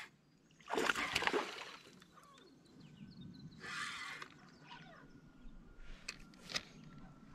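Water splashing and sloshing in two short bursts, the first and loudest about a second in, followed by a few light knocks near the end.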